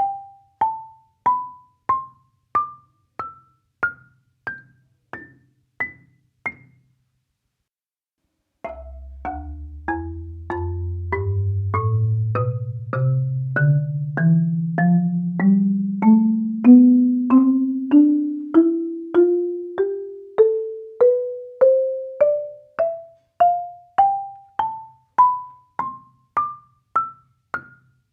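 Marimba played one note at a time in rising scales, about a note and a half a second, picked up raw by a microphone beneath the bars. A first run climbs to the high end and stops about six seconds in. After a short silence a second run starts from the deep bass bars, whose long-ringing notes overlap, and climbs steadily toward the top.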